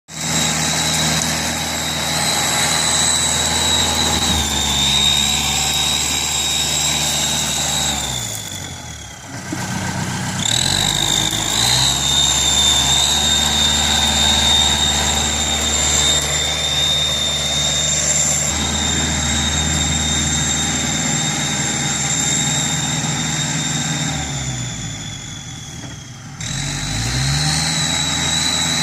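Kubota L5018 tractor's diesel engine running steadily under load with a high, steady whine. Twice, about a third of the way in and again near the end, the engine speed and level drop and then climb back up.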